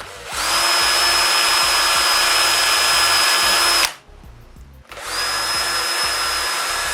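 Power drill running twice with a steady high whine, about three seconds each with a short pause between, as it bores pilot holes in birch supports.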